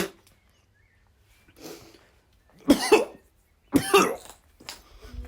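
A person coughing and gagging in a few harsh bursts, the loudest two about three and four seconds in: retching at the stench of rotten bacon in an old freezer.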